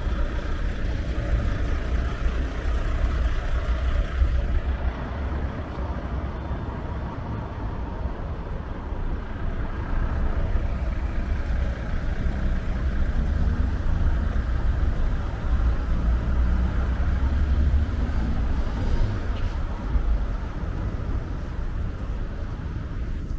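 City road traffic passing steadily, cars and heavier vehicles, with a continuous low rumble.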